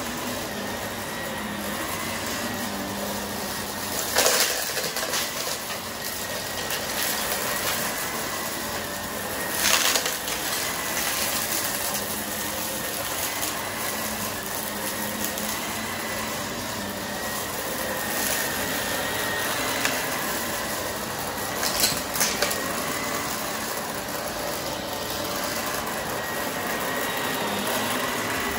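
Vacuum cleaner running steadily over carpet, a constant motor whine under the airflow noise, with three brief louder crunching bursts, about four, ten and twenty-two seconds in, as confetti is sucked up.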